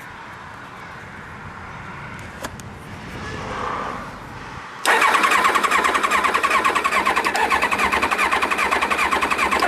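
The electric starter cranks the 1999 Kawasaki ZX7R's 750cc four-cylinder engine for about five seconds as a fast, pulsing whir, without the engine catching. It starts suddenly about five seconds in and stops abruptly. This is the bike's no-start condition: the engine turns over but does not fire.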